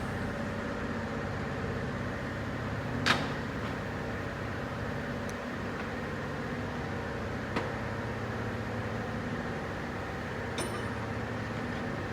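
A steady mechanical hum, with a few sharp clicks or taps scattered through it.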